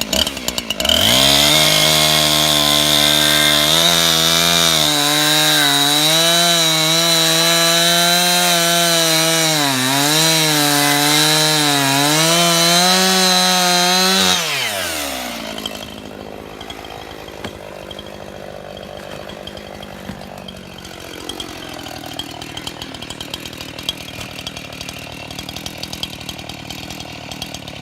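Husqvarna two-stroke chainsaw at full throttle cutting through a soft, rotten log, its pitch wavering and dipping slightly under load. About halfway through the throttle is released and the saw drops to a quieter, steady idle.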